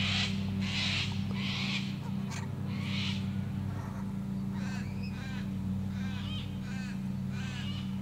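Sulphur-crested cockatoo giving a few harsh screeches in the first three seconds, followed by a run of shorter, arched repeated bird calls. Under them is the steady low drone of a distant lawnmower engine.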